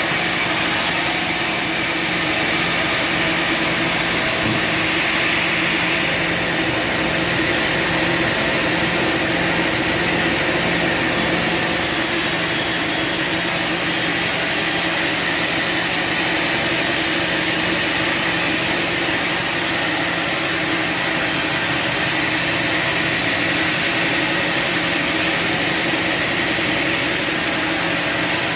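Bandsaw sawmill running steadily: a continuous machine noise with a constant high whine.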